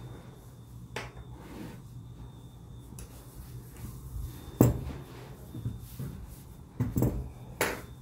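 Lock-pick tool working in a Yale pin-tumbler lock cylinder: a few scattered sharp metallic clicks over soft handling noise. The loudest click comes a little past halfway, others come about a second in and near the end.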